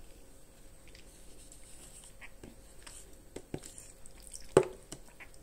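Metal spoon scraping and clicking in a plastic yogurt tub while the yogurt is stirred, a few light clicks, with the sharpest about four and a half seconds in.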